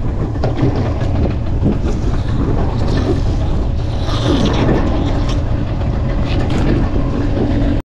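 Strong wind buffeting the microphone on a boat at sea, a heavy fluttering rumble with scattered knocks; the sound cuts off suddenly near the end.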